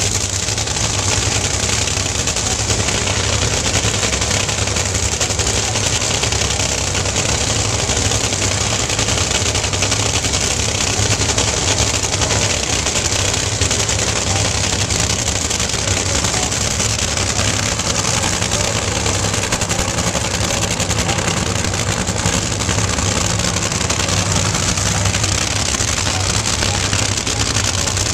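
Two nitromethane-burning supercharged V8 Funny Car engines running at idle at the starting line after their burnouts: a loud, steady, crackling rumble.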